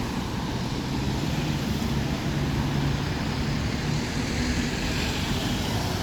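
Road traffic noise: a steady rush of passing vehicles, with a low engine hum from one vehicle for about three seconds in the middle.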